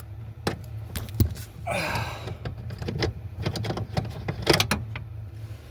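Irregular metallic clicks and knocks of a socket wrench and extension working a steering-column bolt loose, with a short rasp about two seconds in.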